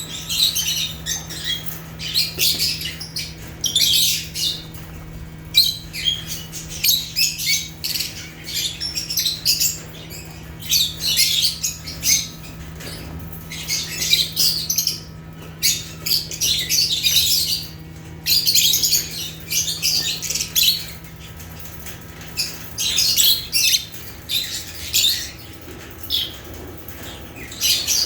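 Lovebirds chirping and squawking in bouts of sharp, high-pitched calls with short pauses between them, over a faint steady hum.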